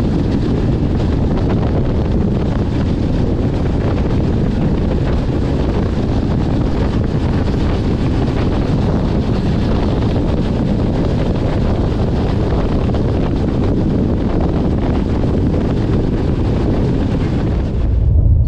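Wind rushing over the microphone, with the steady rumble of a moving passenger train, recorded at an open coach door. Near the end it cuts suddenly to a deeper rumble with the hiss gone.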